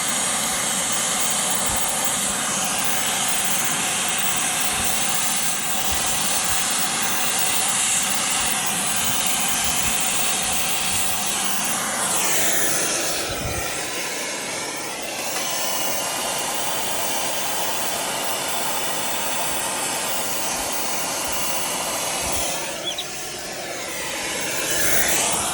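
Brazing torch flame hissing steadily as it heats a line joint on a replacement compressor. The hiss shifts in tone twice, around the middle and near the end, as the flame is moved around the joint.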